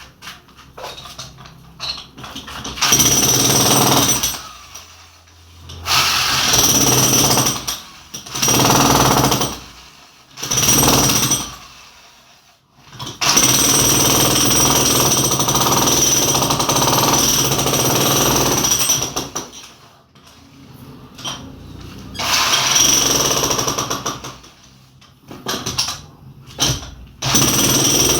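Jackhammer chipping into a solid concrete wall to cut a channel for electrical wiring. It runs in repeated bursts of a few seconds each with short pauses between, and the longest run lasts about six seconds near the middle.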